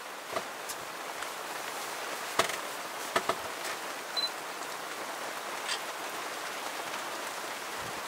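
Quiet open-air background: a steady hiss with a few faint soft clicks scattered through, and one very short high chirp about four seconds in.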